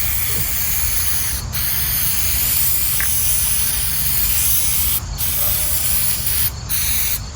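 Aerosol can of 3M headliner spray adhesive spraying with a steady hiss, in long bursts broken by short pauses about one and a half, five, six and a half and seven seconds in.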